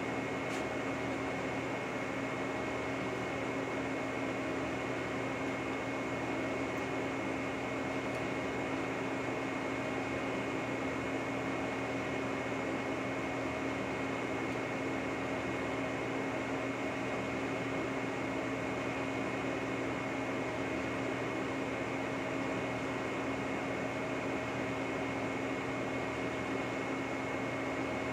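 Lucas model 41 horizontal boring mill running steadily while boring an excavator quick attach's pin holes: an even machine hum with a steady high whine over it.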